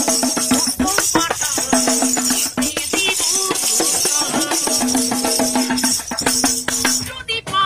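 A man singing a Bengali song in a long, held-note style, beating a quick rhythm on a handheld metal percussion piece that adds a jangling shimmer over the voice.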